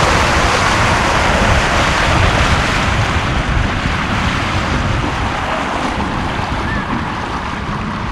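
Steady rush of wind on the microphone and water along the hull of a jonboat running across the lake under its electric outboard, easing off a little partway through.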